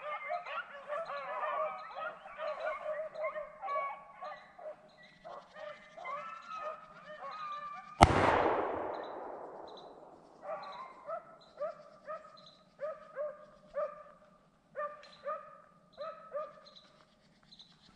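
Pack of beagles baying on a rabbit's trail. About eight seconds in comes one loud shotgun shot that rings on for a second or two. Afterwards the hounds keep up short, repeated bawls.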